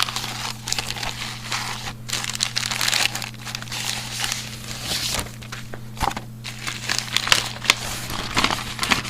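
Plastic packaging crinkling and rustling in irregular bursts as it is handled and opened, over a steady low hum.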